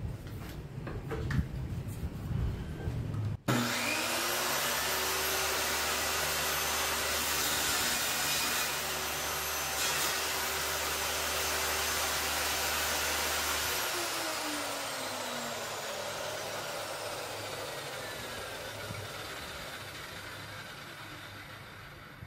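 A circular saw mounted upside down under a homemade table-saw top starts suddenly after a few seconds of light handling clicks. It runs at a steady speed while a scrap of wood is crosscut on a sliding sled, then is switched off and winds down with a slowly falling whine.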